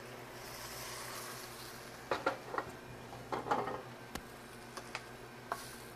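Chicken stock poured from a plastic pitcher into a stockpot of lentils and vegetables, a soft pouring hiss, followed from about two seconds in by several light knocks and clicks as the pitcher is set down and kitchen things are handled.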